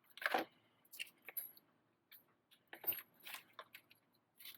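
Plastic parts bags from an RC car kit being opened and handled: a series of short crinkles and crackles, with small parts clicking about.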